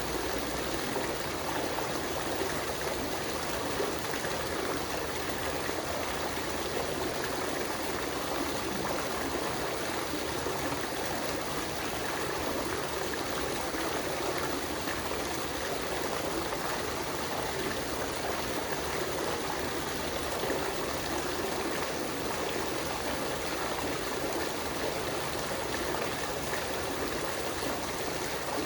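Water fountain splashing and running steadily, with no change in flow.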